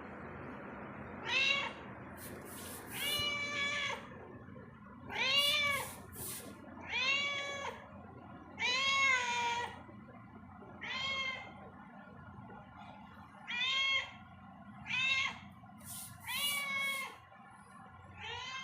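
Domestic cat meowing over and over, about a dozen separate meows each rising and then falling in pitch, one every second or two.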